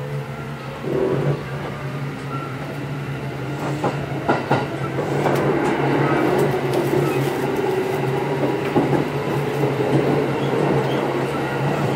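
Kintetsu 8810 series electric train running, heard from inside the car: a steady low hum under a motor whine that drifts in pitch, and a few sharp clicks of the wheels over rail joints about four seconds in. The running noise grows slowly louder.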